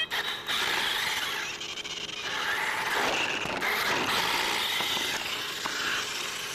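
Toy RC car's small electric motor and gears whining as it drives, the pitch shifting as it speeds up and slows, with a hiss of wheels on the ground.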